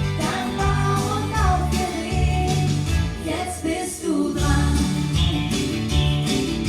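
A country song: a singer over a band, with a steady bass line changing notes every second or so.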